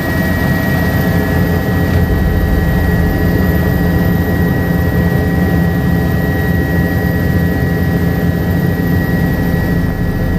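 Helicopter turbine and rotor noise heard from inside the cabin as it lifts off and climbs away: a steady, loud low rumble with a constant high whine over it.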